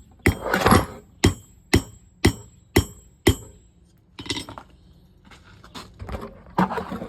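Hammer blows on hot square bar stock on an anvil, tapering it: about two sharp, ringing strikes a second, which stop about three and a half seconds in. Softer, uneven metal clinks and knocks follow.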